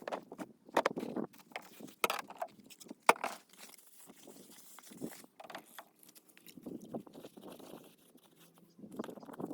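Irregular knocks and clicks with rustling, loudest in the first three seconds, quieter through the middle and picking up again near the end.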